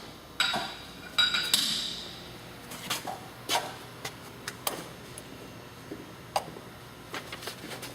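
Metal clinks and knocks with short ringing, a loud cluster in the first two seconds, then scattered lighter ticks and taps.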